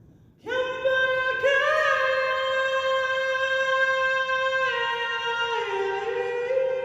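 A woman singing a chant in long, sustained notes, entering about half a second in. The pitch holds for seconds at a time, with a short rising slide near the start and a step down and back up near the end.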